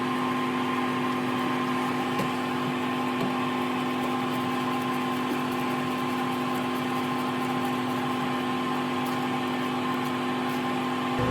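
A steady mechanical hum with a few constant tones over an even whir, like a fan or small motor running without change.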